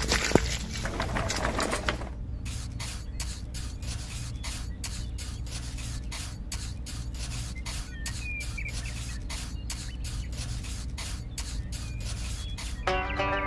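Wet concrete sliding out of a small tipping bucket with a knock, then a small metal trowel scraping and smoothing wet concrete in short, even strokes, about three a second.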